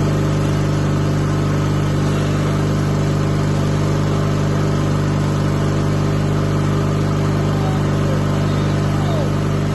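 1997 Yard Machines riding mower engine running steadily just after a cold start in about 10-degree cold.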